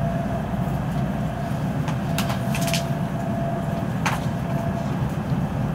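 Cabin noise of a Kyushu Shinkansen train running just after departure: a steady low rumble, with a few short sharp clicks about two and four seconds in.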